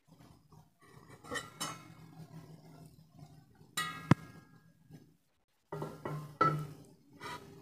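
Steel cookware clinking and knocking: a pot lid and kadhai handled in a few separate strikes, one of which rings briefly about four seconds in.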